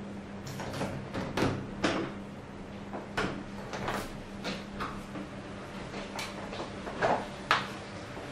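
Panasonic FV-25TGU2 10-inch six-blade ceiling exhaust fan running with a steady low hum. Irregular sharp clicks and knocks, about two a second, sound over it.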